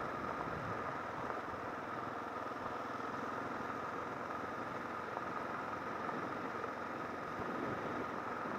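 Kawasaki KLR650's single-cylinder four-stroke engine running steadily, with a thin, steady high whine alongside.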